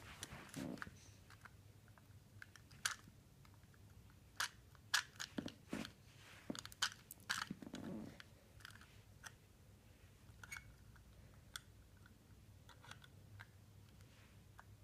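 Plastic Lego Technic pieces clicking and rattling as a hand-held model is handled. The sharp clicks come scattered, most of them between about three and eight seconds in, thinning out after that.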